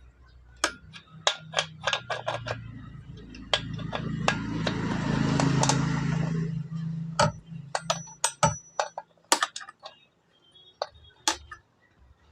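Sharp metallic clicks and knocks of chainsaw parts and hand tools being handled while the brake assembly is fitted. A steady low hum with a hiss swells up from about two seconds in and fades out again about four seconds later.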